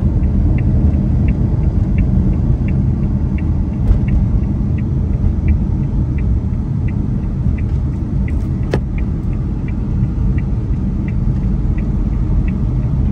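Car cabin with the engine running as a steady low rumble, and the indicator ticking evenly about every 0.7 seconds. One sharp click sounds about nine seconds in.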